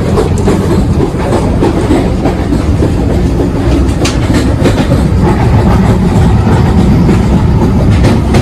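Vande Bharat Express electric train running at speed, heard from inside the coach by the doors: a loud, steady rumble of the wheels and coach, with a few sharper knocks.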